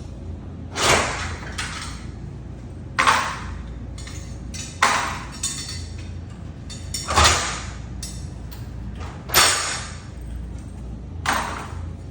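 Metal retaining pins of a garage-door hurricane bar being pulled out and handled: six short metallic clinks and scrapes, about two seconds apart.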